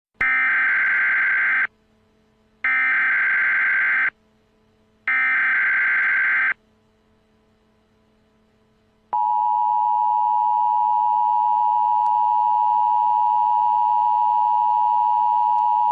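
Emergency Alert System signal: three bursts of warbling SAME header data tones, then the steady two-tone EAS attention signal starting about nine seconds in.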